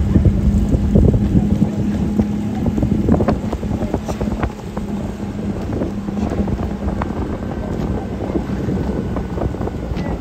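Motor launch engine running steadily under way, with wind buffeting the microphone and water rushing past the hull.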